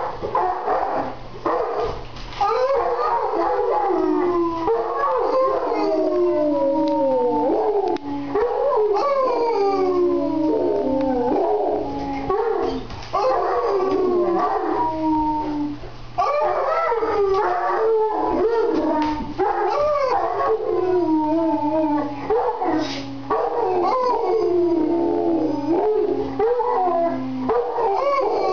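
A mastiff and a man howling together: long, wavering howls that overlap and mostly slide down in pitch, one after another with only brief breaks. A steady low hum runs underneath.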